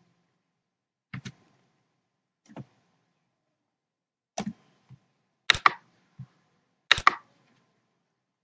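Computer mouse clicks and keyboard keystrokes: about a dozen short sharp clicks, several in quick pairs, spaced irregularly and loudest past the middle, with nothing heard between them.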